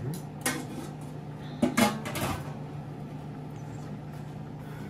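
Kitchen clatter: a few knocks and bumps, the loudest cluster about two seconds in and another near the end, over a steady low hum.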